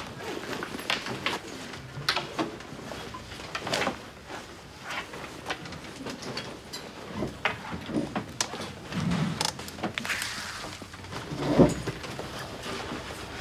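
Schoolbags being opened and searched through: rustling with scattered clicks and knocks, and one louder thump a little before the end.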